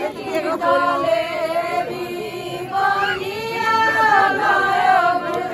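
A group of women singing together without accompaniment, holding long notes in a folk wedding song.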